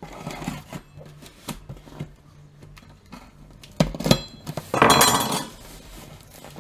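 Parts being handled and unpacked from a box: scattered knocks and clinks, with a loud rustling scrape about five seconds in.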